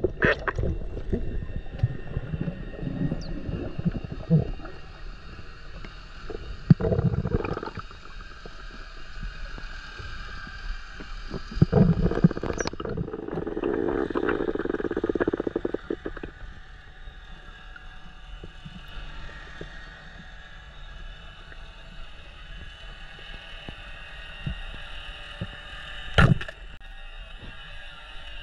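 Muffled underwater noise picked up by a submerged camera: water rushing and gurgling with irregular knocks and rumbles, and one sharp knock near the end.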